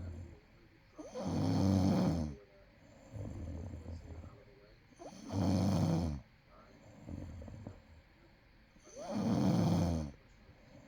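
A person snoring in sleep: three loud snores about four seconds apart, with a softer breath between each.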